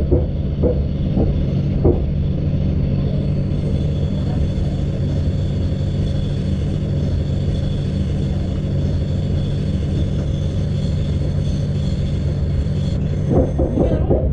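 Passenger train running at speed, heard from inside the carriage: a steady rumble of wheels on rails with a faint high whine. Wheel clicks over rail joints come in the first couple of seconds and start again near the end.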